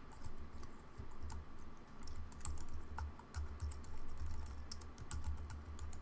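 Typing on a computer keyboard: a quick, irregular run of key clicks as a line of code is entered.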